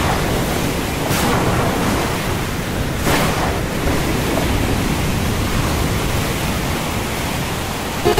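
Stormy sea: a steady rush of wind and waves, with brief surges about one and three seconds in.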